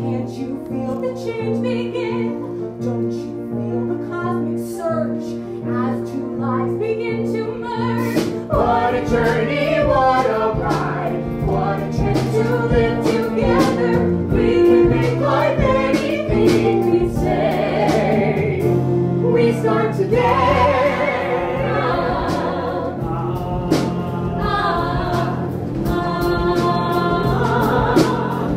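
Musical-theatre ensemble singing with instrumental accompaniment. The sound grows fuller and louder about eight seconds in.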